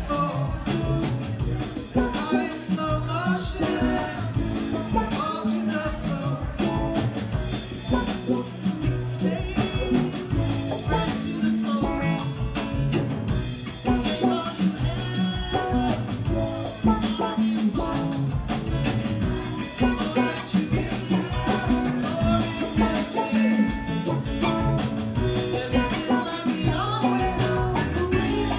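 A live rock band playing an instrumental passage on electric guitars over a steady drum kit.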